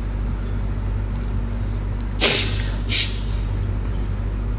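A man sniffling twice in quick succession while weeping, over a steady low hum.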